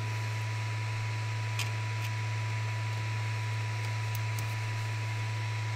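Steady low hum and even hiss of a powered-on Creality Ender 3 V2 3D printer sitting idle, its cooling fans running, with a few faint ticks.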